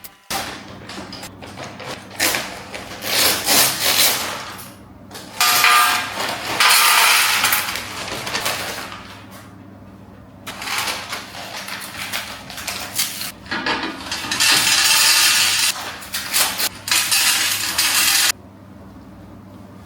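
Unboxing of a Lego Technic set: several bursts of rustling and scraping, each a second or two long, with short clicks of small hard pieces, cutting off suddenly near the end.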